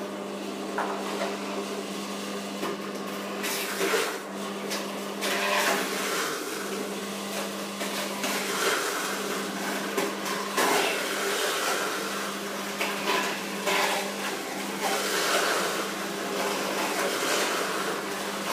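Electric juicer running with a steady motor hum, grinding watermelon chunks with their rind as they are pressed down the feed chute with a plunger. The grinding swells and eases as each piece goes through.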